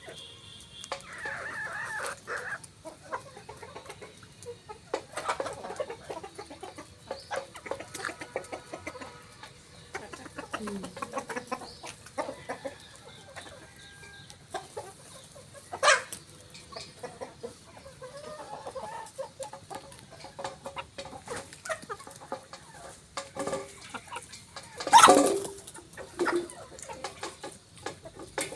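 A flock of desi chickens clucking while they feed, with many small sharp taps of pecking throughout. A sharp tap comes about 16 s in, and one loud call near the end.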